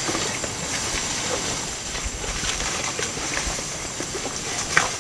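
Asian elephants feeding among dry plant litter: scattered crackles and snaps of dry leaves and stalks, with a sharper snap near the end, over a steady high hiss.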